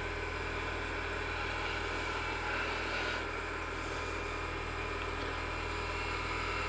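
Oneway wood lathe running steadily, its motor humming, while a spindle gouge cuts a bead into the spinning wood limb. The hiss of the cut comes in two passes, one about a second in and another from about five seconds in.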